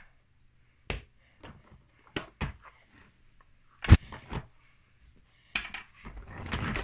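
Hard plastic toy school bus knocking and clattering as it is handled: a string of short, sharp knocks, the loudest about four seconds in, with a run of quicker clatter near the end.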